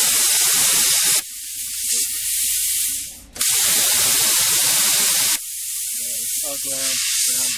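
Handheld plasma cutter cutting through a metal plate: a loud, steady hiss of the plasma jet in two bursts of about two seconds each, with a quieter hiss between them and after the second.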